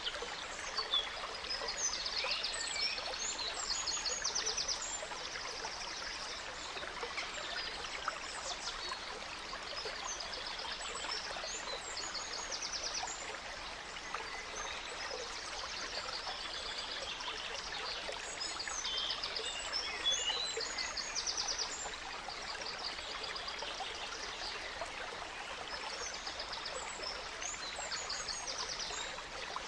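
A gentle stream runs steadily, with songbirds singing high above it in repeated bouts of chirps and quick trills.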